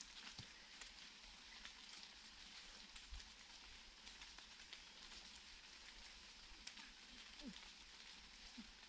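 Near silence: faint outdoor hiss with scattered soft ticks.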